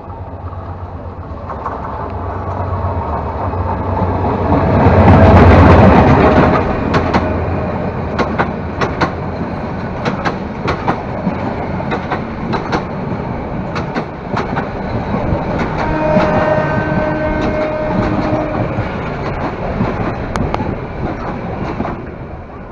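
An intercity train passing close on the next track, heard from the open window of a moving train. Its rush builds to the loudest point about five seconds in, then the coaches' wheels clatter past over rail joints in rapid clicks. The noise falls away near the end as the last coach clears.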